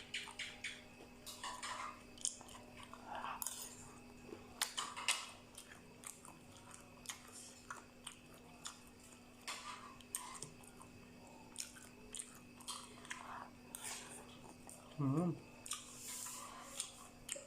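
A person chewing mouthfuls of Thai mixed seafood spicy salad, with irregular small crunches and wet mouth clicks. About fifteen seconds in there is a short voiced sound from the eater.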